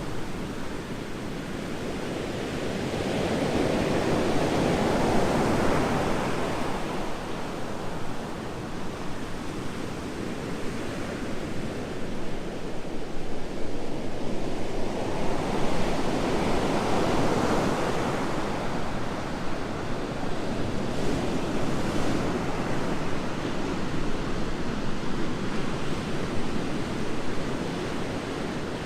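Ocean waves breaking and washing up on a beach, a steady surf wash that swells twice, about four seconds in and again about fifteen seconds in. Wind buffets the microphone.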